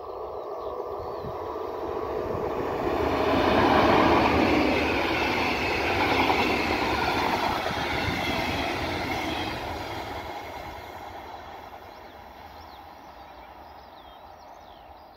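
DB Regio double-deck passenger train passing at speed: a rolling rush of wheels on rail that builds up, is loudest about four seconds in, and fades away as the train moves off.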